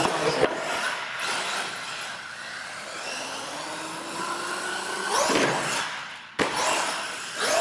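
R/C monster truck's electric motor whining as it drives, rising in pitch as it accelerates in the middle, with a sharp knock near the end.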